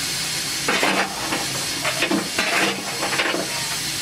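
Steady hiss of steam from a narrow-gauge steam locomotive, with several short bursts of metallic clatter between about one and three seconds in.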